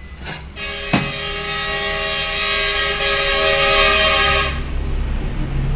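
A horn sounding one long steady blast of about four seconds, several tones held together, over a low rumble. A sharp knock comes about a second in.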